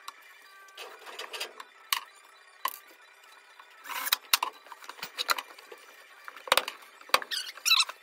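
Tools, a metal drawer slide and plywood being handled: scattered clicks and knocks with short scrapes, two sharper knocks about six and a half and seven seconds in, and squeaky scraping near the end.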